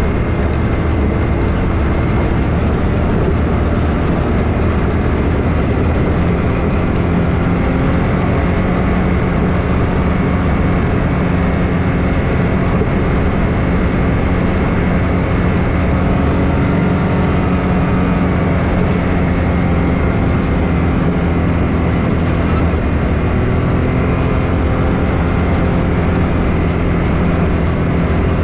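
Can-Am Maverick X3 side-by-side's turbocharged three-cylinder engine droning steadily while under way on the trail.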